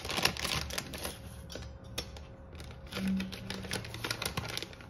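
A run of small clicks and crinkles from kitchen handling, thickest in the first second and again around three seconds in.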